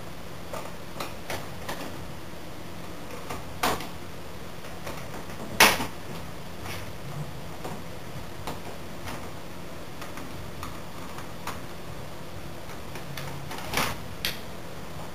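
Scattered, irregular clicks and knocks of hand tools on a motorcycle as a part is taken off to reach the oil filter, with one loud knock about five and a half seconds in and another cluster near the end.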